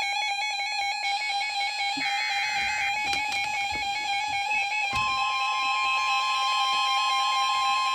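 Emergency alert tones: a steady electronic alert tone held throughout, layered with music-like electronic tones that step up and down in pitch. About five seconds in, a second, higher steady tone joins, like the long warning tone of a NOAA weather radio alert.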